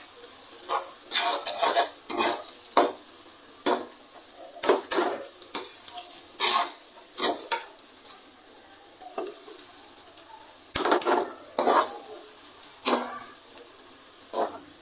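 Steel spoon scraping and clinking against a steel kadai, stirring onion and ginger frying in oil, with a steady sizzle underneath.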